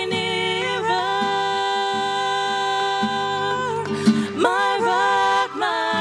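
A woman singing long held notes through a stage microphone, accompanied by an acoustic guitar.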